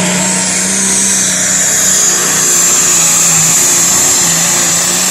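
Pulling tractor's engine running flat out under load during a pull, a loud steady drone with a high-pitched whine over it.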